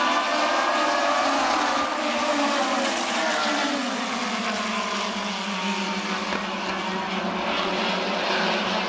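A field of USAC midget race cars running at speed on a paved oval, several engines at once. Their pitches slide lower a few seconds in.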